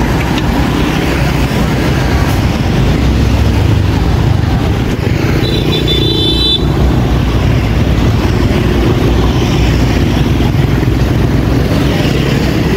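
Street traffic of motorbikes and scooters running past, a steady low rumble. A short high-pitched horn beep sounds about halfway through.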